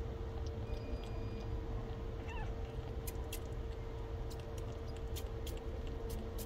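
Newborn kitten, about two weeks old, giving one faint short mew a little after two seconds, then sucking at a person's finger with a string of quick little wet clicks.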